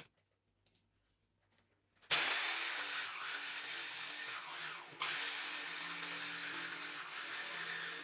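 Electric power tool switching on about two seconds in and running steadily with a whine and hiss, briefly dying down near the middle and then running again at full speed.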